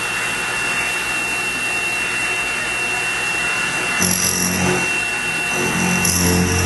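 X2 mini mill's spindle running at about 1,000 RPM with an end mill cutting along the bracket's edge, a steady machine whine over cutting noise. A louder, lower steady hum joins about four seconds in.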